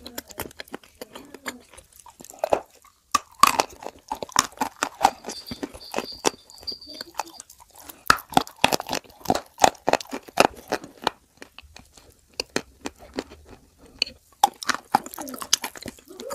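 Close-up crunching and chewing of Turkestan edible clay with clay paste: a dense, irregular run of crisp cracks and crunches as chunks are bitten and ground between the teeth.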